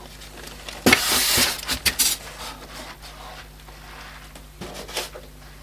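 Packaging rustling and kit parts knocking as a boxed DIY 3D printer kit is unpacked: a burst of rustling about a second in, then a few light clicks and knocks.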